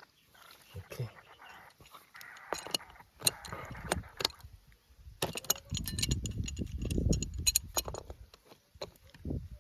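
Scattered sharp clicks and scrapes of a plastic compression fitting on a water pipe being tightened by hand. A louder low rubbing rumble runs from about five seconds in to about eight and a half.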